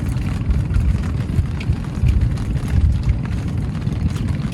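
Wind buffeting the microphone as a rough, uneven low rumble, with a few faint ticks.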